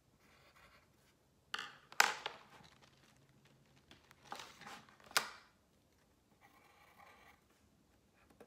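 Colored pencil scratching on construction paper, broken by the clatter of colored pencils in a clear plastic case as one is picked out. The case gives sharp clacks about two seconds in and again around five seconds, then the pencil scratching resumes.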